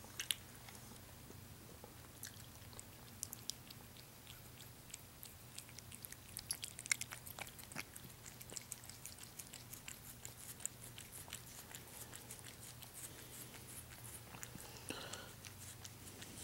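A cat chewing and biting a piece of broccoli from a hand: faint, quick wet clicks and smacks, busiest in the middle stretch.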